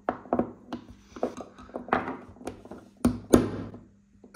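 Irregular taps and clicks of tools working against a Shimano BL-M8000 brake lever as its pivot pin is pushed out, with two heavier knocks about three seconds in.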